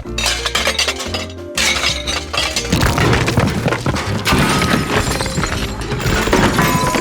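Destruction sound effects of glass shattering and debris breaking: a few sudden crashes in the first three seconds, then a dense, continuous clatter of breaking pieces, all over background music.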